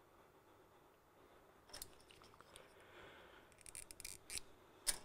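Faint handling sounds of small hand tools and thread: a sharp click about two seconds in, a quick run of clicks and snips near four seconds, and a louder click near the end.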